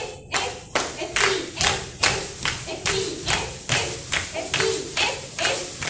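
A cheerleading-style chant: several women's voices shouting a cheer in short calls over a steady run of sharp claps, about two and a half a second.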